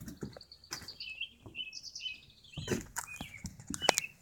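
Small birds chirping in short, high repeated notes, with scattered knocks and handling noise.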